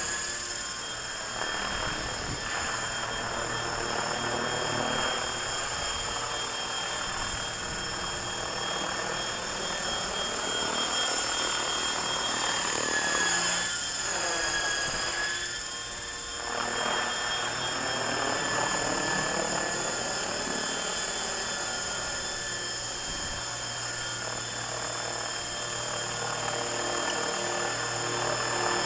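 Frenzy 600E electric RC helicopter on a 5S pack flying overhead: a steady high motor whine over the whir of the rotor blades, swelling and dipping a little as it moves about.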